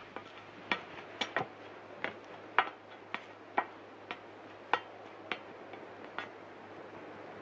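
Footsteps on a wooden rooftop plank walkway: sharp, separate steps about every half second, over a faint steady hiss and low hum.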